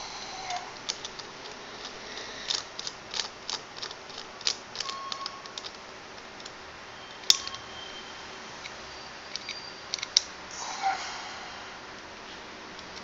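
Irregular small clicks and light metallic taps as steel e-cigarette parts are handled and set down on a work mat, with a sharper click about seven seconds in that rings briefly.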